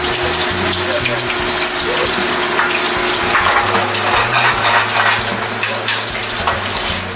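Food sizzling in a hot skillet: a loud, steady hiss with scattered crackles and pops.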